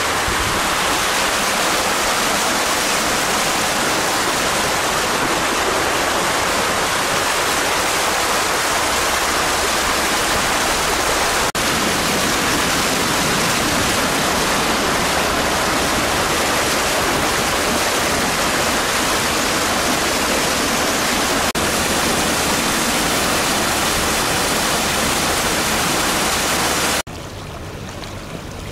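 Loud, steady rushing noise of water, even and unbroken. Near the end it cuts off abruptly to a much quieter background.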